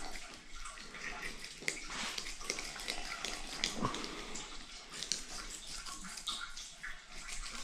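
Fillet knife slicing along a northern pike's backbone toward the tail: a wet, scraping cut through the flesh, with many small quick ticks as the blade rides over the bones.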